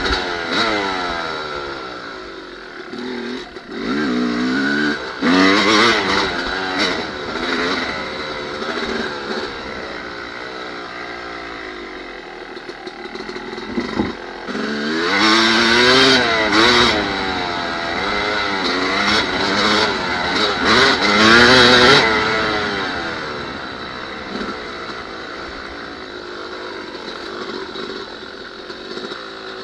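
Blue Yamaha dirt bike engine being ridden, revving up and down under changing throttle. It is loudest in two hard-throttle stretches, about five to seven seconds in and again from about fifteen to twenty-two seconds in, and eases off near the end.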